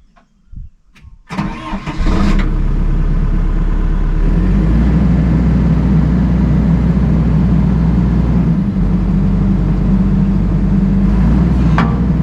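Excavator engine cranked on the starter about a second in, catching and then running at a steady idle that settles about four seconds in. It is being run to put pressure on a freshly replaced hydraulic O-ring to check for leaks.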